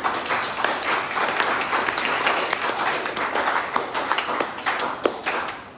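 Congregation clapping: dense, steady applause that stops just before the preacher resumes.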